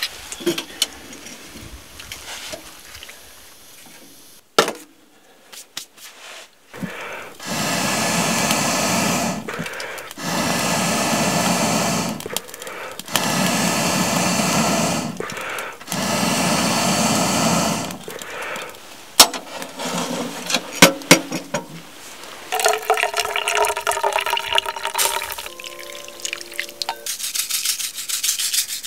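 Four long, strong rushes of breath blown into a wood stove's firebox, each about two seconds with short pauses between, followed by a few sharp metallic clinks.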